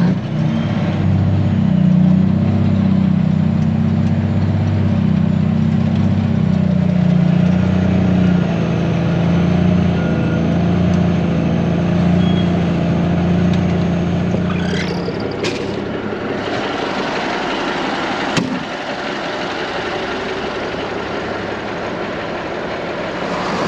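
Truck engine running with a steady low drone that cuts off about two-thirds of the way through. After it stops come a few short clicks and one sharp knock.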